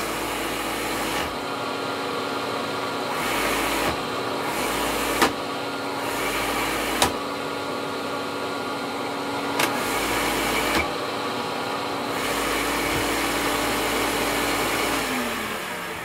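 Upright vacuum cleaner (Hoover Turbopower 1000) running steadily while a hand holds the brush roll and lets it go several times, with a few sharp knocks. The roll stalls under light pressure because the drive belt is stretched and slips on the motor pulley. Near the end the motor is switched off and winds down with a falling tone.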